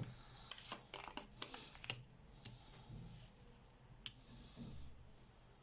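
Faint rustling and short clicks of tarot cards being handled and laid down, several in the first two seconds, then single ticks about two and a half and four seconds in.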